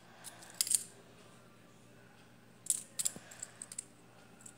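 Metal fidget spinner clicking and clinking sharply as it is handled and flicked, in two short clusters: one a little under a second in, the other near three seconds in.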